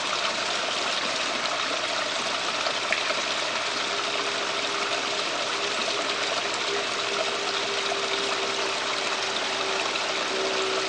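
Steady running water from a backyard pond or pool water feature: an even, unbroken trickling rush.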